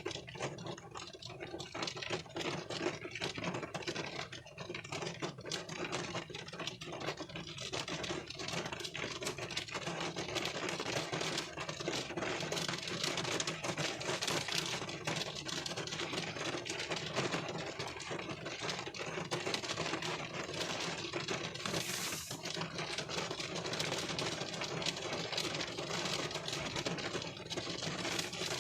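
Rain drumming on a car's windscreen and roof, heard from inside the car: a dense, steady patter of countless small drops, with a brief stronger hiss about three-quarters of the way through.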